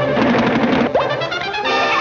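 Orchestral cartoon score with brass, busy and loud, with a quick rising glide about a second in.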